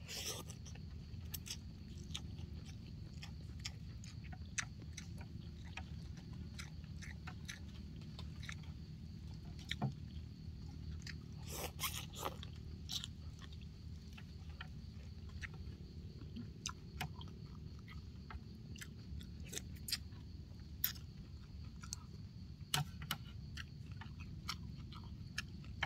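Close-up mouth sounds of a person eating kuy teav noodle soup with chopsticks: chewing and wet smacking, with many short clicks scattered throughout.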